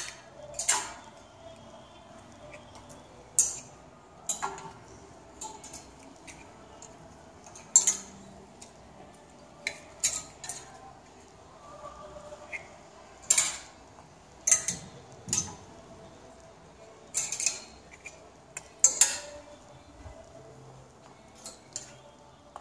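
Clothes hangers clicking and scraping along a chrome clothing-rack rail as dresses are pushed aside and pulled out: a dozen or so sharp irregular clinks with short quiet gaps between.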